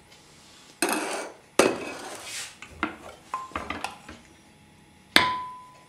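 Steel ladle scraping and clinking against the inside of an aluminium pressure cooker as thick cooked dal is tipped out: two scrapes and a run of small clinks. About five seconds in there is one sharp metallic clank that rings briefly.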